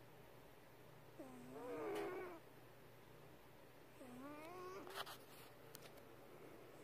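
Sleeping cat snoring: two wheezy, whistling snores with a wavering pitch, about a second and four seconds in, each lasting about a second. A small click comes at the end of the second snore.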